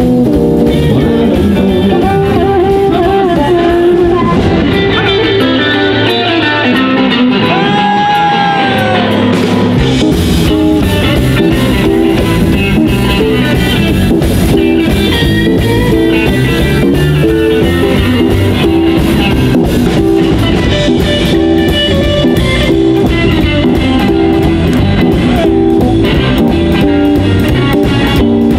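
Live band music with electric guitars, upright bass and drums playing an instrumental passage, a Telecaster-style electric guitar taking the lead. About five seconds in the low end thins out and a note bends up and back, then the full band comes back in near ten seconds.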